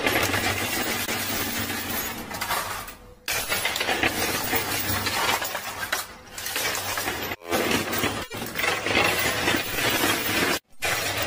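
Dense, steady clatter of poker chips in a coin pusher machine, many small clinks as the chips slide and knock against each other under the moving pusher shelf. The sound cuts out abruptly twice in the later part.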